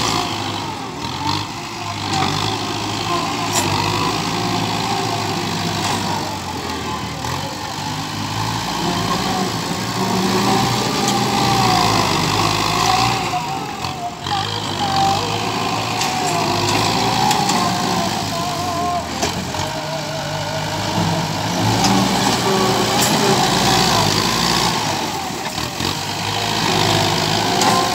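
Farm tractor's diesel engine running steadily under load as it pulls a disc plough through dry soil.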